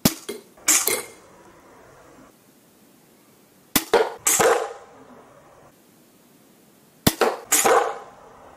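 Slingshot crossbow firing three times, a few seconds apart. Each sharp snap of the release is followed about half a second later by a second smack with a short ring as the bolt strikes the wooden target board.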